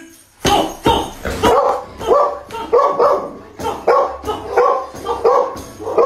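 Barking from a battery-powered plush toy dog: a quick, evenly spaced run of about ten short barks.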